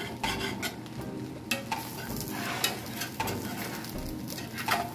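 Spatula stirring and scraping fried rice around a hot skillet, with irregular sharp scrapes over a steady sizzle.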